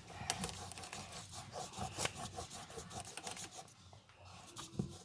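Faint rubbing and scraping with scattered light clicks, as a small object is handled and rubbed at by hand.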